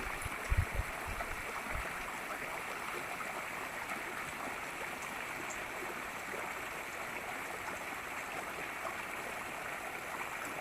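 Steady rush of flowing stream water, with a few low bumps about half a second in.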